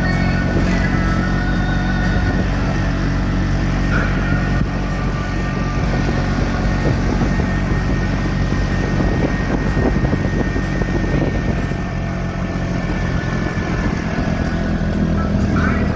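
Motorcycle engine of a tricycle (motorcycle with sidecar) running steadily while under way, heard from the sidecar.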